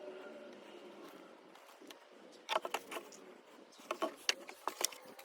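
Light clicks and knocks from a plastic motor-oil jug being handled at the engine's oil filler during a refill, in clusters about two and a half seconds in and again around four to five seconds in.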